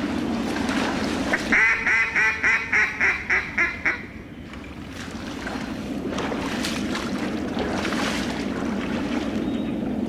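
Mallard duck call blown in a quick run of about eight quacks, each a little softer than the last, a descending greeting call, starting about a second and a half in. Around it, water sloshing as the hunters wade through the flooded timber.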